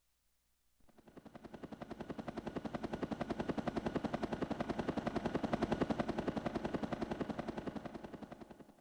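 A built-in sound effect from a Platinum KS-5 karaoke machine: a rapid, even rattle of about a dozen pulses a second. It fades in about a second in, swells, and fades away near the end.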